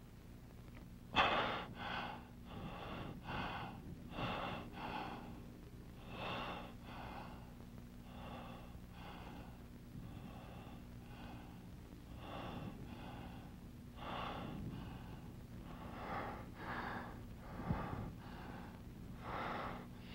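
A man breathing hard, in short paired breaths about once a second, with a sharp gasp about a second in. A steady low hum runs underneath.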